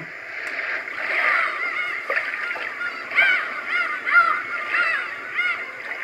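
Roffie N600 white noise machine playing its last water sample through its small speaker: a steady water sound with many short bird calls over it, overlapping, several a second, each rising and falling in pitch.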